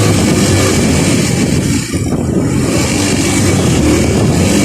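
Motorcycle engine running while riding in traffic, under a steady rushing noise.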